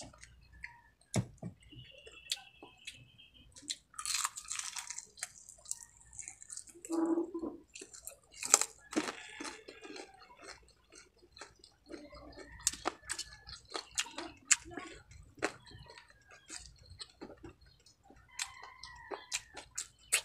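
Close-up chewing and crunching of crispy deep-fried chicken, with many short sharp crackles and wet mouth sounds throughout.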